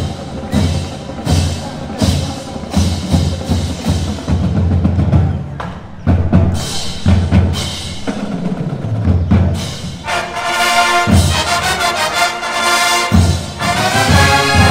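Marching band drumline playing a loud beat driven by bass drums. About ten seconds in, the brass section comes in with full sustained chords, breaks off briefly, then enters again near the end.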